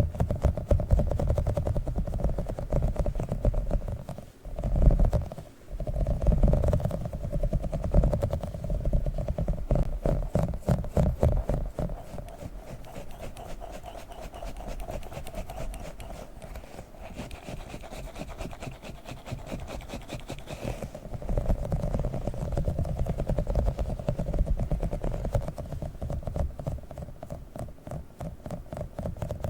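A small squishy octopus toy is squeezed and handled rapidly close to the microphone, making a dense, continuous run of squishing sounds. It is louder for the first dozen seconds, softer for a while, then louder again.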